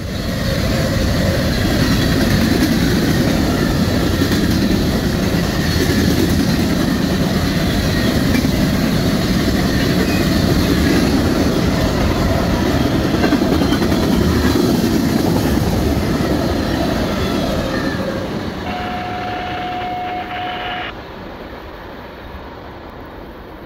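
Freight train of hopper and tank cars rolling past close by: a steady rumble and clatter of steel wheels on the rails. About 18 seconds in it drops away as the train recedes, with a steady tone for about two seconds.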